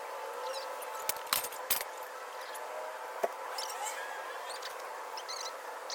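A few sharp clicks and clatters, a cluster of them about a second in and one more past three seconds, over steady background noise, with short bird chirps now and then.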